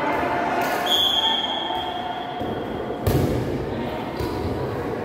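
Thumps of an air volleyball being hit during a rally, echoing in a sports hall, with a background murmur of voices. The loudest hit lands about three seconds in, and a high steady tone sounds for about a second and a half near the start.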